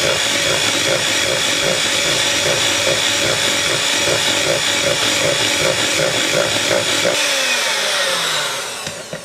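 Electric hand mixer running steadily at speed, its twin beaters churning cream cheese batter in a bowl with a steady high motor whine. Near the end it is switched off, and the whine falls and fades as the motor winds down.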